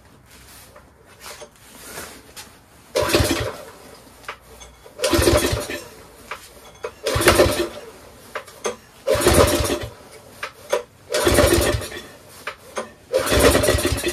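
Briggs & Stratton 6 HP Intek single-cylinder engine on a pressure washer, pull-started about six times in a row about every two seconds on carburetor spray, firing on the pulls but not running on. It fires only with two-stroke oil added to the cylinder, which the owner takes as a sign of low compression from bad rings or piston.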